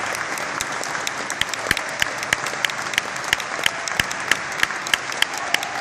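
Audience applauding, the dense clapping settling into a steady rhythm of about three claps a second from roughly two seconds in.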